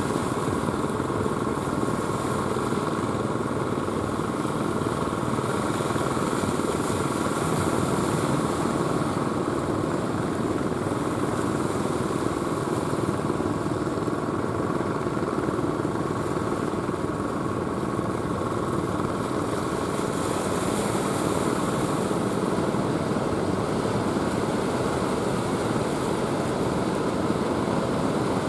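A small engine running steadily over the constant wash of the surf.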